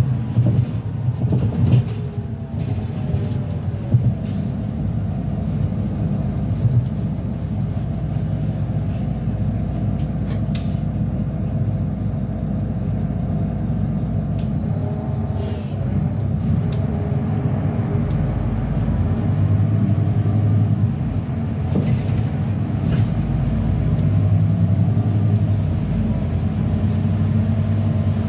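City bus driving, heard from inside the cabin: a steady low rumble of drivetrain and road, with faint whines that rise and fall as it speeds up and slows, and scattered rattles and clicks.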